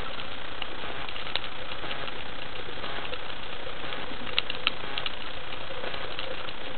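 Underwater ambience heard through an action camera in its waterproof housing: a steady hiss with scattered sharp clicks and crackles and a faint steady hum, a few louder clicks about the middle.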